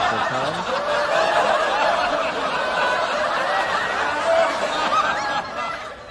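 A group of people laughing and chuckling together, many voices overlapping, dying away near the end.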